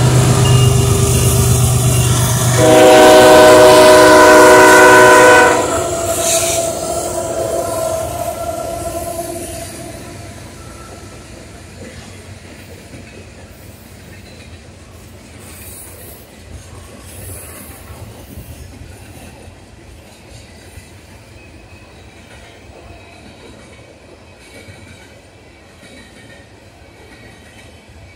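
Diesel-hauled freight train passing. The locomotives' diesel engines rumble by at first, then the train horn sounds one long blast of about three seconds, the loudest part, with a fading tone lingering after it. The freight cars then roll past on the rails, gradually quieter.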